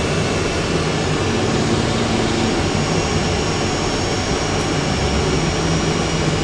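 Steady cockpit noise of a Boeing 747 taxiing, its jet engines at low taxi power: a constant rushing hum with a faint high whine and no breaks.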